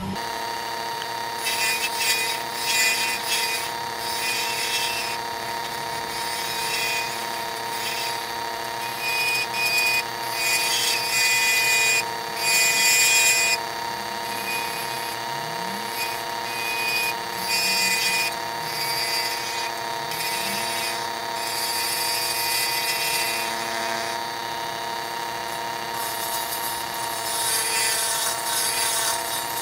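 Wood lathe switched on and running with a steady motor whine while a hand turning tool cuts a zebrano (zebra wood) pen blank. The cutting comes in repeated scraping spells, loudest near the middle.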